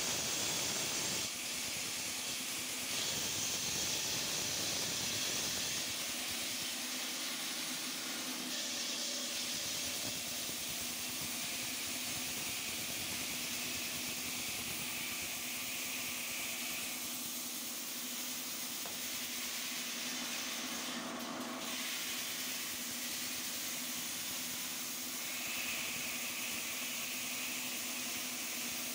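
Water-cooled stone-cutting saw running in a factory: a steady hiss with a faint low hum under it.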